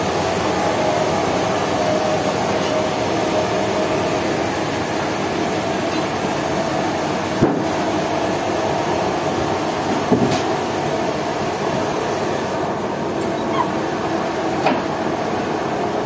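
Steady machinery drone of a sawmill running, with a few sharp knocks, about three, as heavy timber slabs are shifted and stacked.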